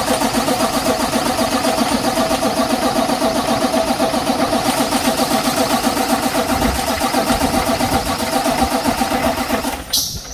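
Cummins ISX inline-six diesel being cranked over by its starter without catching, a steady rhythmic pulsing that cuts off near the end. It won't fire because the fuel lines were opened during the injector work and the fuel system has not yet refilled.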